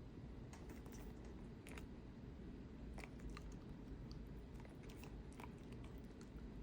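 A dog chewing its food, heard faintly as irregular clicks that start about half a second in, over a low steady background hum.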